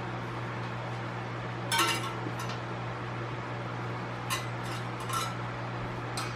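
Electric fan running with a steady hum, while a few light metallic clinks and taps sound as an inner tube and its valve stem are worked into a tire on a motorcycle rim. The clearest clink comes about two seconds in, and a few fainter ones follow.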